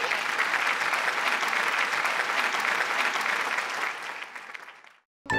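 An audience applauding, with the clapping fading away over its last second or so.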